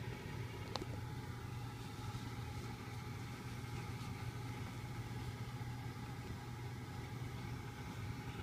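A steady low mechanical hum, with a single faint click about a second in.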